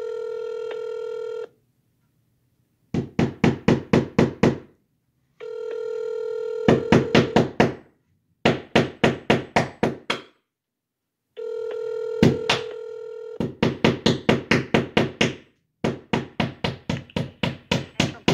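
Telephone ringing while a call is being transferred: a steady tone of about a second alternates with bursts of rapid trilling ring pulses, repeating about every five and a half seconds.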